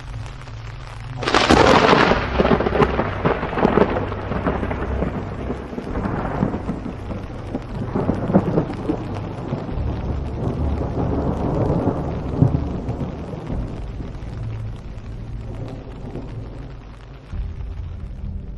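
Thunderclap: a sudden loud crack about a second in, then a long rolling rumble that swells again several times.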